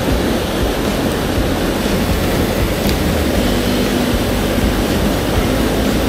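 Mountain stream rushing steadily, an even wash of water noise.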